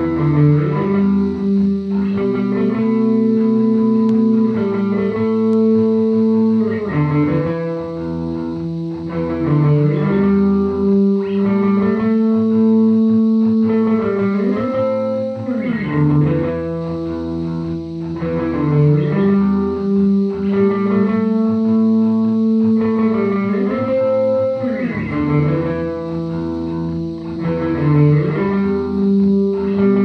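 Instrumental music led by an electric guitar through effects, playing held notes that slide in pitch from one chord to the next.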